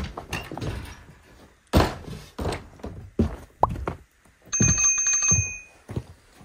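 A snow shovel scraping and knocking on a snowy wooden deck and steps, with boots stepping on the boards: a string of separate thumps and scrapes. About four and a half seconds in, a bell-ring notification sound effect rings for about a second.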